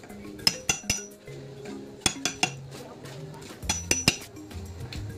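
Metal parts and tools from an Isuzu Crosswind gearbox overhaul clinking sharply, in quick clusters of two or three strikes that ring briefly, over background music.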